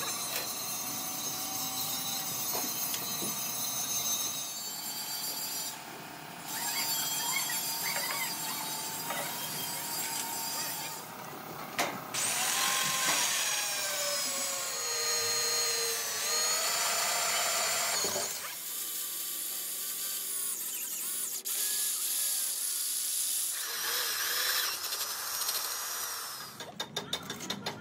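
Electric power tools running in a workshop, in a string of short cut-together clips: a high motor whine that dips and recovers in pitch as the tool works.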